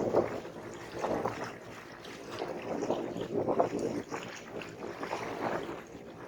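Small sea waves lapping and splashing, in irregular surges every second or two.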